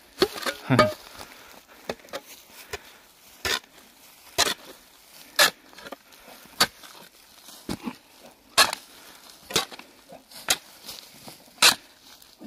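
Steel spade repeatedly stabbed and chopped into soil and dry grass, one sharp strike roughly every second, at an uneven pace.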